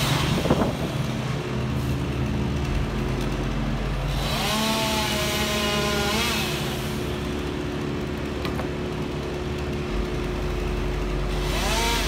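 Chainsaw in the lift bucket revving up about four seconds in, holding speed for a couple of seconds, then revving once more and dropping off, with another short rev near the end. A steady low engine hum runs underneath.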